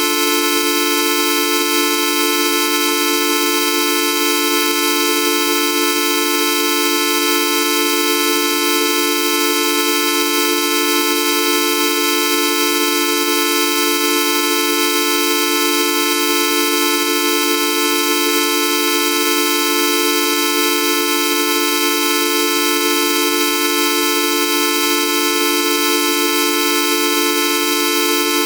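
Synthesized electronic drone: a fixed, horn-like cluster of buzzing tones over a hiss, held perfectly steady throughout, with no change in pitch or loudness.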